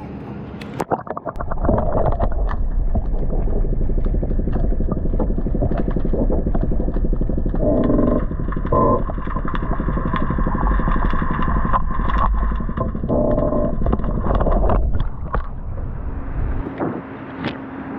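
Muffled underwater sound picked up by an action camera dunked in harbour water: a loud, deep rumble with a dense, rattling texture that starts about a second in and stops shortly before the end as the camera comes back out.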